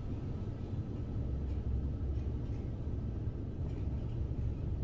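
Steady low indoor rumble of room background noise, with a few faint soft ticks.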